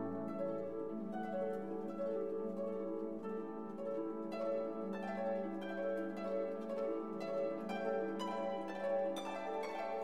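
Background music of plucked, harp-like string notes, with the plucks coming quicker near the end.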